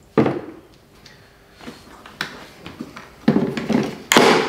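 Plastic clicks and knocks as the 18 V battery is taken out of and pushed back into the battery bay of a Bosch GAS 18V-12 MC cordless vacuum, with the loudest, longer knock near the end.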